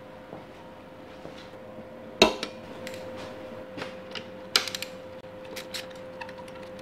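Metal hand tools clinking and clanking as a socket and extension are set onto a bolt on a motorcycle's fairing bracket, with a sharp clank about two seconds in and another just past halfway. Light ticking follows near the end, over a steady faint hum.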